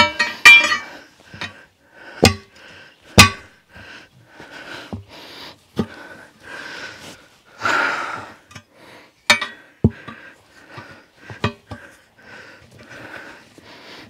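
Steel tyre irons clanking against the wheel rim in about eight sharp, separate knocks as a tyre bead is levered off the rim by hand, with a man's heavy breathing from the effort between the knocks.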